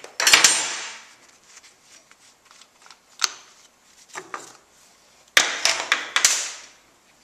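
Metal clinks and knocks as the bar nuts and sprocket side cover of a Stihl chainsaw are taken off. A few sharp knocks come singly, then a cluster of clatter and scraping about five and a half seconds in as the cover comes away.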